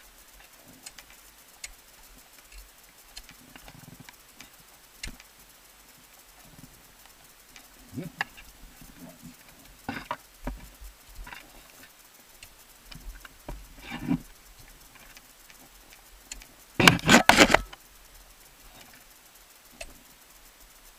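Ice tools and crampons striking into frozen-waterfall ice during a climb: separate short chopping blows every few seconds, then a louder flurry of several blows near the end.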